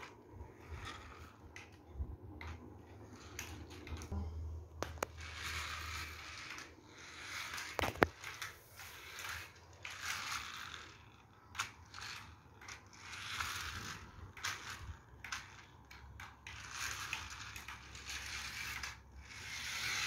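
Toy RC rock crawler's electric drive motor and gears whirring in repeated bursts of a second or two as it is driven on and off the throttle, with one sharp click about eight seconds in.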